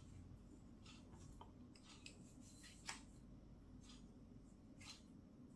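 Near silence with a few faint, short clicks and rustles from hands handling a pistol barrel, a cleaning push rod and a felt patch.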